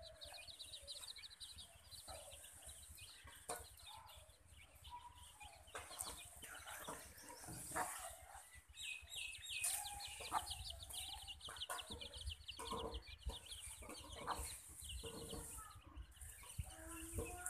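Chicks peeping in long runs of rapid high chirps, with a hen clucking low among them. Occasional sharp clicks are heard, and a low rumble runs underneath.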